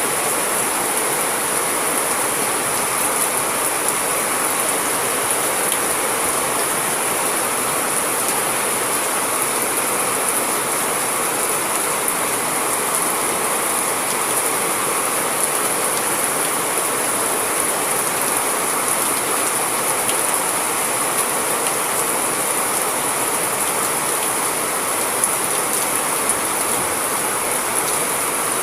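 Steady rain falling: an even, unbroken hiss of drops with faint scattered ticks.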